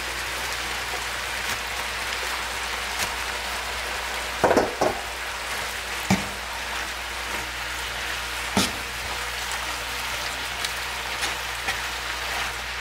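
Beef, onion and tomato sizzling steadily in a hot frying pan as a stir-fry, with a utensil knocking against the pan a few times around the middle.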